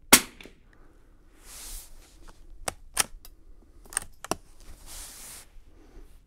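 A single shot from a 1941 Marlin 81 DL bolt-action .22 rimfire rifle, followed by the bolt being worked by hand: sliding rasps and four sharp metallic clicks.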